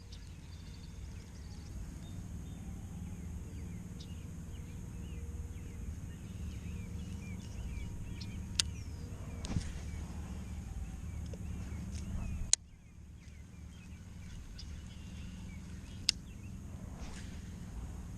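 Outdoor ambience: a steady low rumble with small birds chirping now and then and a few sharp clicks. The rumble drops suddenly about twelve seconds in.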